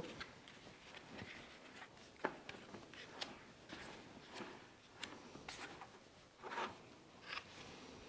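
Digital Bird pan head being screwed by hand onto a tripod mount: faint rubbing and scraping with a handful of light clicks as the housing turns on the thread.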